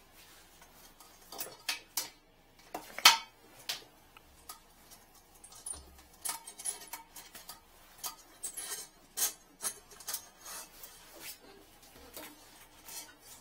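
Hooked metal rod clicking and scraping against the porcelain of a toilet bowl as it is worked down the trap to fish out a blockage: irregular sharp knocks and clinks, the loudest about three seconds in.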